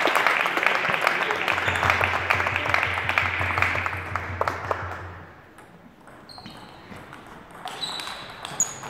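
Applause mixed with voices in a large hall, dying away about halfway through. Then a table tennis ball pings a few times, bouncing on the table as the server gets ready.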